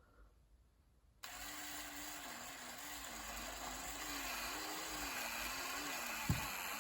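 Power drill starting about a second in and running slowly in low gear, its motor whine wavering in pitch as it cuts into the broken muffler bolt hole on a Stihl 291C chainsaw cylinder. A single sharp click comes near the end.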